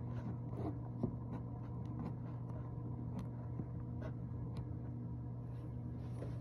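A steady low electrical hum, with a few faint scattered clicks and rustles.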